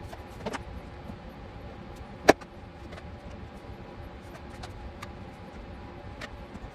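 Handling noise from a resin statue being turned on its base on a desk: a few light clicks and knocks, with one sharp knock about two seconds in, over a steady low room hum.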